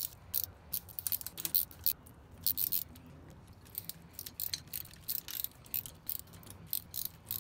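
Socket ratchet clicking in quick irregular runs of strokes as its 11 mm socket turns the screws of an intake manifold clamp, only taking up the slack, not tightening.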